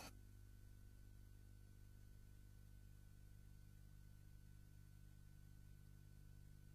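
Near silence: a faint, steady low electrical hum with a thin, steady high tone above it.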